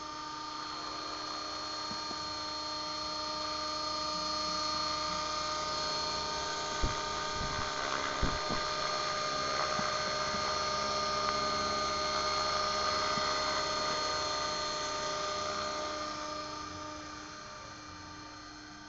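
Radio-controlled model helicopter in an Agusta 109 scale fuselage flying overhead: a steady high whine of its electric motor and spinning rotor. It swells as the model passes close, about twelve seconds in, and fades as it moves off near the end.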